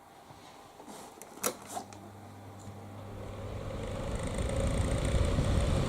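Electric fan switched on with a click, its motor hum starting and the rushing air on the microphone building steadily louder as it spins up.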